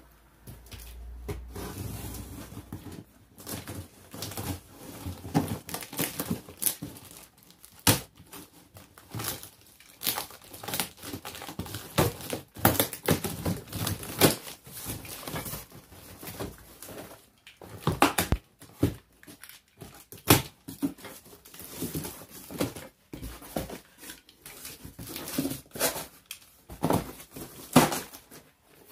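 Cardboard shipping box being cut open: packing tape slit and ripped with a small cutter, and cardboard flaps scraped, folded back and crinkled, in an irregular run of scratches, rips and rustles.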